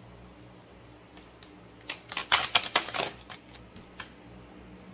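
A deck of oracle cards being shuffled: a quick run of sharp clicks about two seconds in, lasting about a second, then one more click.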